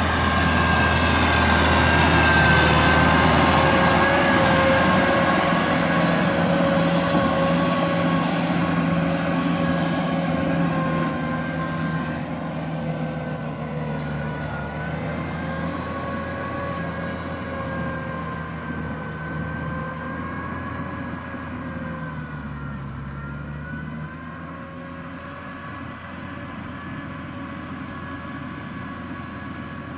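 Small farm tractor's engine running steadily with a high whine that wavers slightly in pitch, fading gradually as the tractor moves away.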